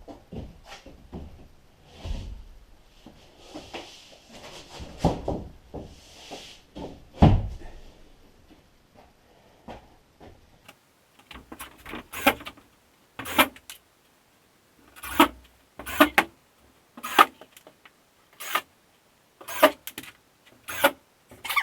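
Sheetrock being hung: a sheet handled with thumps and scraping, the loudest thump about seven seconds in, then a run of sharp, evenly spaced strokes, roughly one a second.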